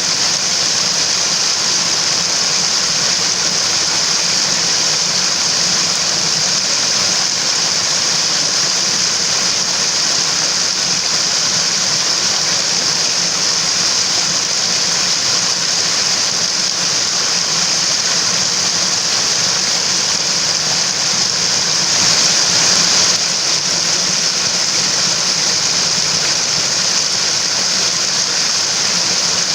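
Rushing water of a mountain stream, a steady, unbroken hiss that swells slightly for a moment past two-thirds of the way through.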